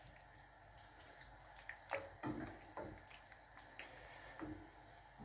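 A wooden spoon stirring a mushroom cream sauce in a frying pan: faint wet squelching with a few soft knocks in the second half.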